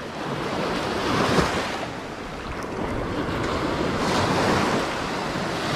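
Ocean surf breaking and washing up the beach, swelling twice, with wind rumbling on the microphone.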